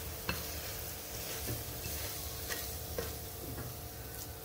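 Wooden spatula scraping sticky boondi-and-sugar-syrup mixture out of a pan onto a steel plate, with a few sharp knocks of wood and pan rim on metal over a steady faint hiss.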